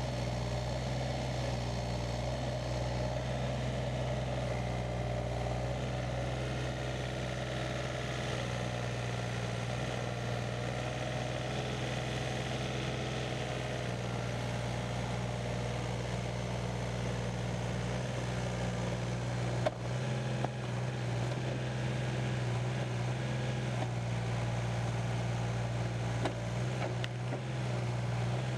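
Case CX36B mini excavator's 28 hp Yanmar diesel engine running steadily at an even speed, with a couple of brief clicks or knocks about two-thirds of the way in.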